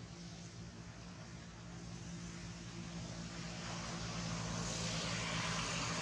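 A steady engine hum that grows gradually louder, with a rising hiss over the last two seconds, like a motor vehicle drawing nearer.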